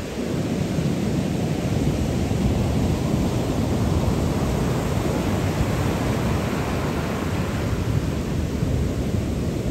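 Ocean surf breaking and washing up a sandy beach: a steady, unbroken rush of waves, heaviest in the low rumble, that rises slightly in the first second.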